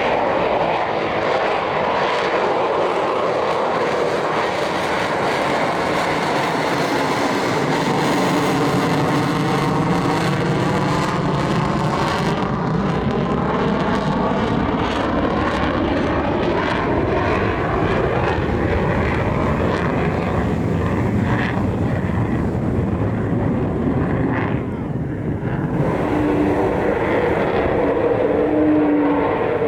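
F-35A fighter jet engine running loud and steady, its rushing noise sweeping in tone as the aircraft passes.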